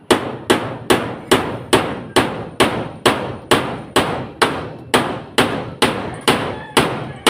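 Hammer blows struck in a steady, even rhythm, about two and a half a second, each with a short ring.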